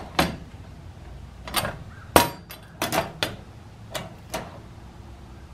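Wire-mesh live-animal trap's door and lever worked by hand, opening and closing against a push-button cutout switch: a string of sharp metal clicks and rattles, the loudest a little past two seconds in.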